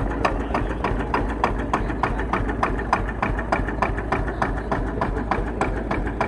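Vintage single-cylinder engine running at a slow, even idle, its firing strokes coming steadily at about three to four a second.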